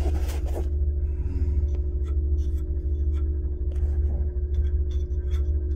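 Steady low hum with a constant mid-pitched tone, under light scratching and ticking of a hand brushing and feeling along the aluminium fins and copper return bends of a walk-in cooler's evaporator coil.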